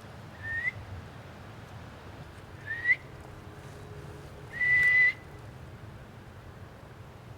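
Three clear whistled notes at about the same pitch: two short upward-hooking ones about two seconds apart, then a longer held note about half a second long, the loudest of the three, over steady wind noise.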